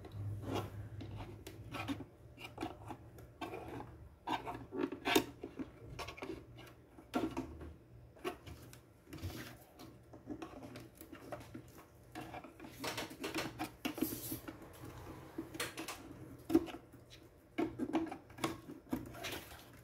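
Irregular clicks, taps and rubbing from hands working on a subwoofer speaker box while it is glued and sealed, over a faint steady low hum.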